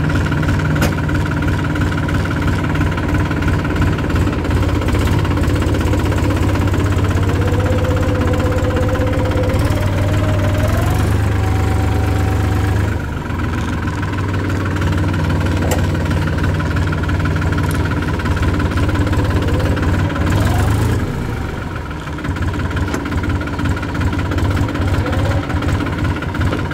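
Engine of a 50 HP, 2700 cc Massey Ferguson Dynasmart 4x4 tractor running steadily under way while the forward-reverse shuttle is worked. The engine note dips briefly about halfway through and again about three-quarters of the way in.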